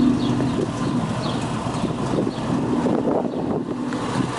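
1955 MG TF1500's 1.5-litre four-cylinder engine idling steadily, with a few short bird chirps above it.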